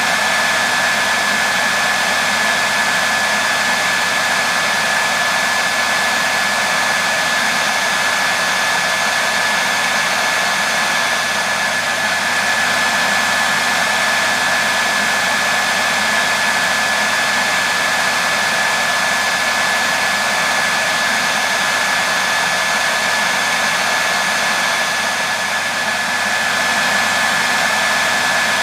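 Hairdryer running steadily: a constant airy whoosh with a thin high whine held on one pitch.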